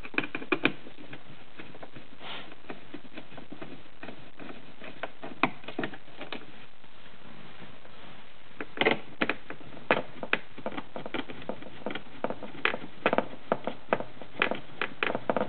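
Irregular light clicks and ticks of a hand screwdriver working the stainless screws out of a plastic speaker grille cover. The clicks are sparse at first and come more often in the second half.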